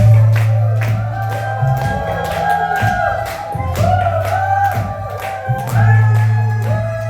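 Music with a sung melody over bass notes and a steady beat.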